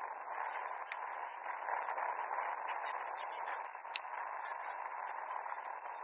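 Steady, thin background hiss of outdoor pitch ambience, with two short sharp clicks about one and four seconds in.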